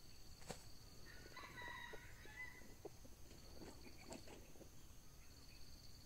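Red junglefowl calling faintly: one call about a second in, lasting about a second and a half, followed by scattered short rustles and knocks around four seconds in. A steady high insect trill runs underneath.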